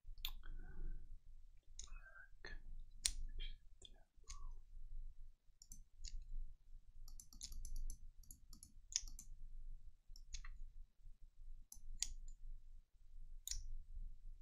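Scattered short clicks and ticks, with a quick run of ticks about seven to nine seconds in, from computer mouse clicks and the online poker client's chip sounds as a bet is sized and placed. A faint low hum runs underneath.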